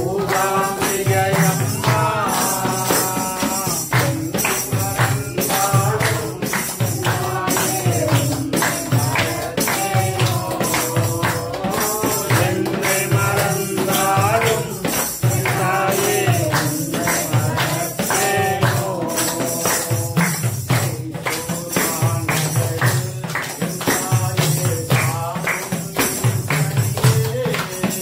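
Hindu devotional bhajan sung with a tambourine keeping a steady rhythmic beat throughout.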